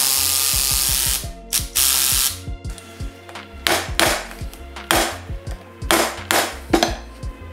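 Cordless impact driver hammering on a bolt of a ZF power steering pump's bracket, in two runs, as the pump is taken apart for a rebuild. From about halfway in, a rubber mallet strikes a ratchet handle on the pump several times to break a bolt loose.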